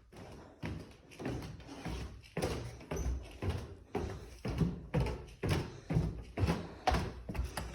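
Footsteps on a hard floor in an empty, echoey house: a steady walking pace of about two thumping steps a second.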